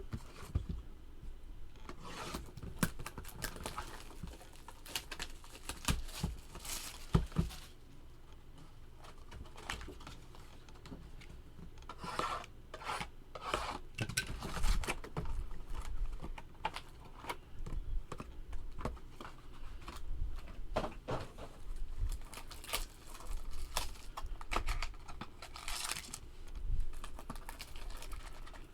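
Packaging of a sealed trading-card box being torn open and crinkled, with many light clicks and rustles as the cardboard box and card packs are handled.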